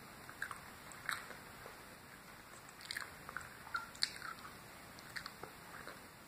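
A person biting into and chewing a soft peanut butter brownie, with scattered small mouth clicks and smacks.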